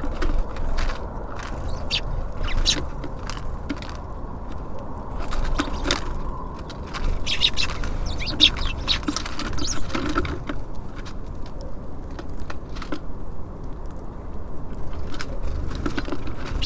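Small birds at a bird feeder: a run of quick taps and pecks against the feeder, with a few short chirps in the middle, over a steady low rumble.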